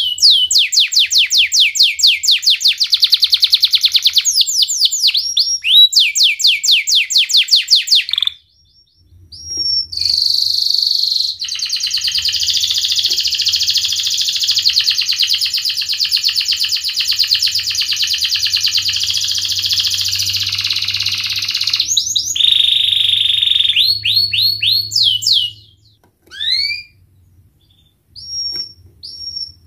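Domestic canary singing: fast trills of repeated falling notes for about eight seconds, a short break, then a long unbroken rolling trill (ngerek) lasting about ten seconds, followed by more quick trills, a pause and a few scattered notes near the end.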